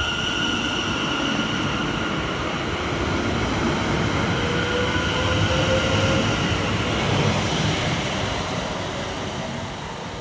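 London Overground Class 710 electric multiple unit pulling out of the platform, with wheels running on the rails and a steady high whine. A lower whine rises in pitch about halfway through, and the sound fades near the end as the train draws away.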